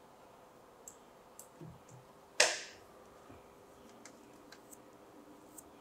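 Faint, scattered computer mouse clicks, with one louder short burst of noise about two and a half seconds in that fades away within half a second.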